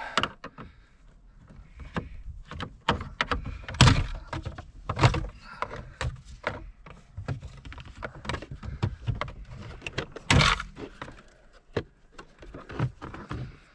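A clip-held plastic car interior trim panel being pried and pulled loose by hand: a run of irregular plastic clicks, creaks and rattles, with louder sharp knocks about 4 and 5 seconds in and again a little after 10 seconds as the clips give.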